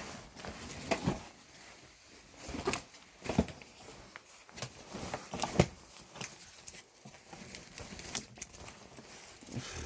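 Irregular clicks, knocks and rustling of belongings being handled and moved about in a small room, with a couple of sharper knocks about three and a half and five and a half seconds in.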